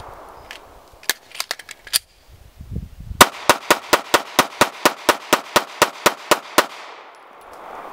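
Glock pistol firing. A shot and a few quieter sharp reports come about a second in. After a short pause comes a rapid string of about sixteen shots at roughly five a second, followed by echo dying away.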